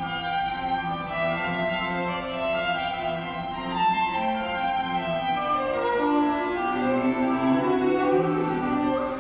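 String quartet music: violins and cello playing a busy passage of many short, overlapping notes.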